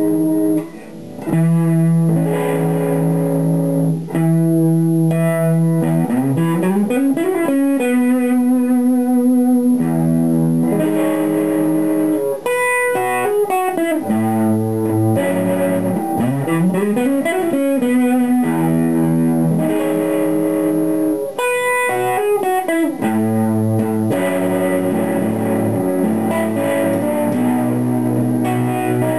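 Electric guitar (a Fender Stratocaster on its middle single-coil pickup) playing chords and single-note lines through an analog vibe pedal set to moderate depth and speed, followed by distortion, into a small tube amp. Notes slide upward twice.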